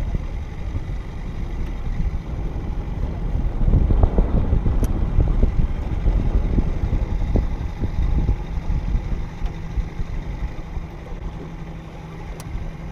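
Muffled rumble and sloshing of water heard through a camera held under water. It surges loudest through the middle, with scattered knocks, and a steady low hum runs through the second half.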